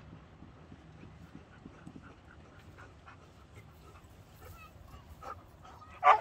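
Husky dog giving one short, loud call right at the end; before it, only faint scattered sounds.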